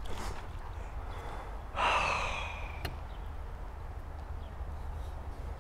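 A man's long exasperated sigh about two seconds in, a breathy exhale, at a bass that has just come off the line. A short sharp click follows just after it.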